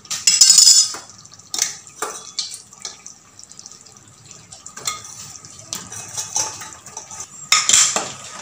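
Steel spoon clinking and scraping against a steel cooking pot while moving fried chicken pieces in thin gravy, with wet sloshing. A longer scrape in the first second, scattered sharp clinks through the middle, and another scraping stretch near the end.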